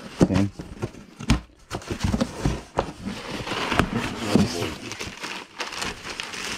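Cardboard box being slit open with a small blade and its flaps pulled back: rustling and scraping cardboard with scattered knocks as the boxes are handled.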